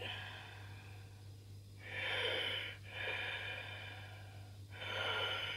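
A man breathing heavily close to the microphone, four breaths of about a second each, over a steady low hum.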